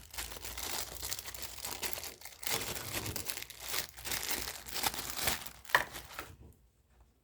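Packaging crinkling and rustling as it is handled and opened, with a sharp click near the end. It stops about six seconds in.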